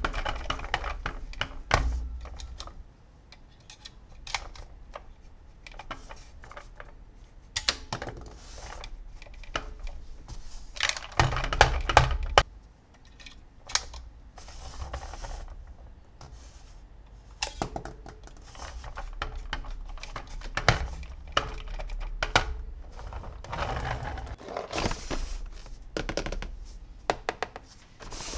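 Plastic toys being handled: an irregular string of clicks, knocks and small rattles, with a louder, busier clatter about halfway through.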